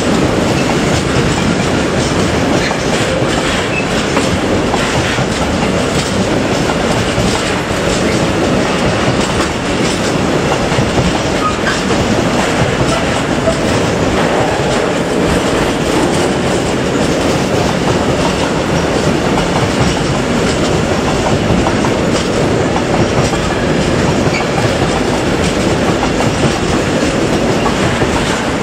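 Freight train of tank wagons rolling past close by: a steady, loud rumble of steel wheels with the clickety-clack of wheelsets over rail joints.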